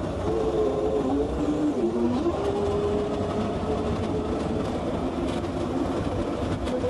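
Heavy earthmoving machine's diesel engine running under a steady low rumble, its pitch rising and falling as the engine speed changes.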